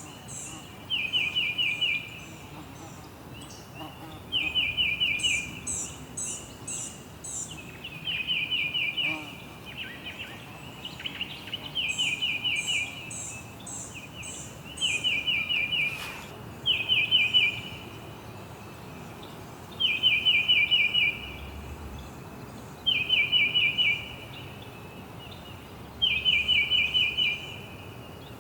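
Songbirds singing: one bird repeats a short, fast trill of notes, each phrase about a second long, roughly every three seconds. A second, higher-pitched bird gives brief runs of four or five quick chirps twice.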